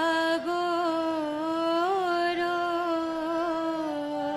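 A woman singing a slow devotional bhajan in long held notes with small wavering ornaments, over a steady harmonium accompaniment.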